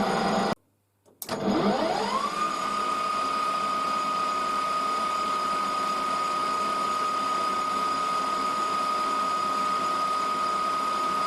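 Machine-tool motor running, then a cut; a click, and the motor spins up with a whine rising in pitch for about a second before holding steady at speed.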